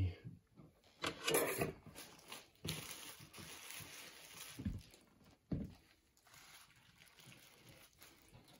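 Faint, scattered handling sounds at a kitchen counter: a few soft brief knocks and rustles with quiet stretches between.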